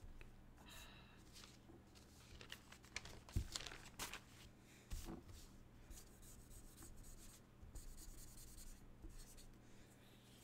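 Felt-tip marker rubbing and scratching faintly across paper as a drawing is coloured in. There are a few light knocks, the loudest about three and a half seconds in, over a steady low electrical hum.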